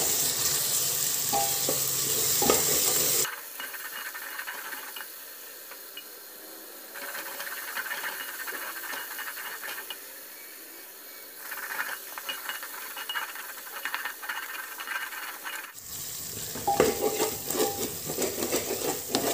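Onions and cumin sizzling in oil in a pressure cooker, stirred with a wooden spatula that scrapes against the pot; the onions are frying toward golden brown on high flame. The stirring and sizzle are louder for the first three seconds and again from about sixteen seconds in, quieter in between.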